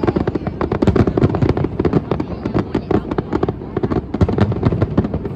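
Fireworks display going off: a dense, irregular run of bangs and crackles, many a second.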